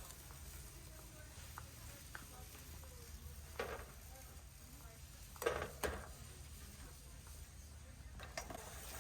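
Warehouse store background hum with a few short clanks and rattles, the loudest a pair about two seconds apart in the middle.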